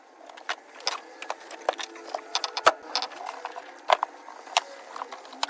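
Irregular clicks, clinks and light knocks of hand tools and metal fittings being handled while car interior trim is taken apart, with the sharpest knocks a little under three seconds and about four seconds in.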